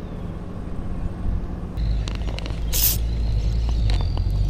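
Spinning reel being cranked on a fishing rod: faint repeated clicks over a thin steady whine, with one short hiss about three seconds in and a low rumble underneath.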